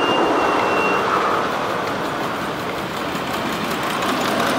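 Ride-on miniature live-steam locomotive running past on ground-level track: a steady rushing noise of steam and wheels on the rails. A short thin high tone sounds near the start.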